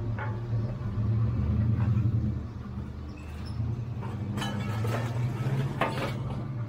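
Scrap-yard material handler with an orange-peel grapple: its engine drones steadily, swelling and easing as the hydraulics work. In the second half, scrap metal clatters several times as the grapple closes on it in the crate.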